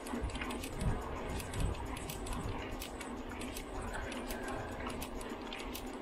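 Bicycle rattling and ticking while being ridden, with many irregular light clicks over a low rumble.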